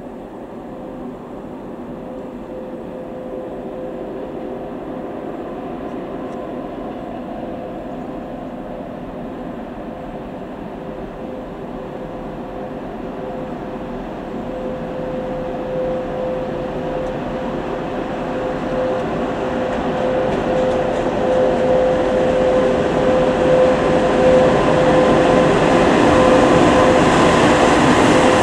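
VL80k electric locomotive hauling a freight train, approaching and passing close by, growing steadily louder. A steady hum runs through its running noise, with the rumble of the wagons building near the end.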